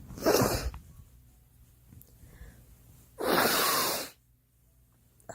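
A girl coughing: a sharp cough just after the start, then a longer, breathy one lasting about a second, starting about three seconds in.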